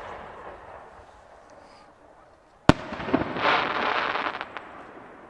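An aerial firework shell bursts with one sharp bang about two and a half seconds in. A second or two of dense rumbling sound follows and fades out.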